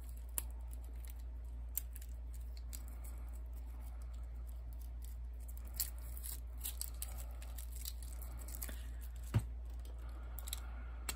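Small crinkles, tearing and clicks of plastic wrapping being picked off a new Sharpie oil-based paint marker, with a sharp click about nine seconds in. A steady low hum runs underneath.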